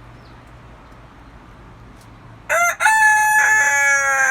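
Rooster crowing once, starting about halfway in: a short opening note, then a long held call that sinks slightly in pitch.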